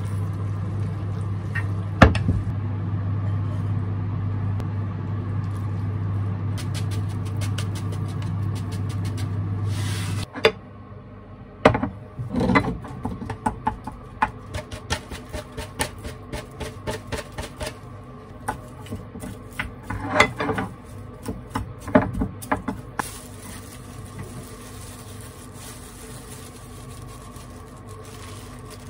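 Steady low hum from an induction cooktop heating a frying pan, with one sharp knock about two seconds in; the hum cuts off suddenly about ten seconds in. Then a wooden spoon scrapes and taps in a bowl in quick, irregular strokes as rice is mixed, thinning out to occasional handling sounds near the end.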